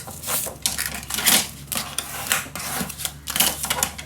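Cardstock being scored with a scoring tool: a series of short, quick scratchy strokes of varying strength as the tool is drawn along the paper.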